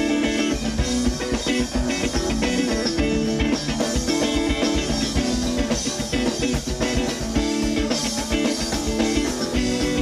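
Live rock band playing: electric and acoustic guitars, electric bass and drum kit, amplified through a PA.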